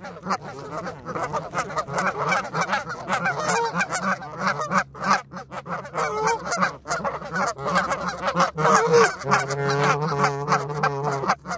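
A flock of Canada geese honking and calling close by in many short, overlapping calls, with frequent sharp clicks mixed in. A longer, drawn-out call comes near the end.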